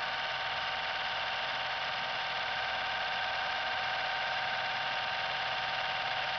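Steady room tone in a cinema auditorium: an even hiss with a faint hum, starting suddenly and holding unchanged.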